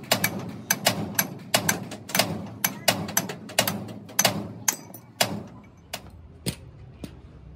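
Hammer blows on a truck's front steering knuckle, working the king pin out: sharp metal-on-metal strikes, about two or three a second, each with a short ring. Near the end the blows give way to a few lighter, spaced knocks.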